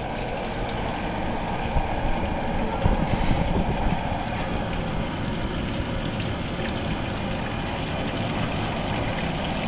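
Duck pieces deep-frying in a wok of oil over a gas burner: a steady roar from the burner with the oil bubbling, and a few louder knocks about two and three seconds in.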